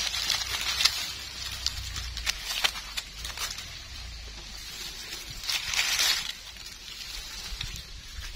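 Dry leaf litter rustling and crunching as a gloved hand and a knife dig through it, with scattered sharp snaps and clicks; a louder burst of rustling comes about five and a half seconds in.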